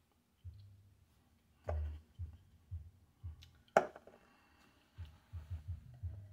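A beer glass handled and drunk from: soft low thumps, then a sharp knock a little over halfway as the glass is picked up off the table. Near the end come several short, quick gulps as the beer is swallowed.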